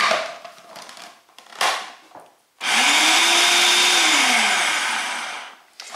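A few plastic knocks as the food processor's lid and bowl are handled, then the food processor's motor runs for about three seconds, whirling dry flour and salt to combine them: its pitch rises as it speeds up, holds, then drops as it is switched off and winds down.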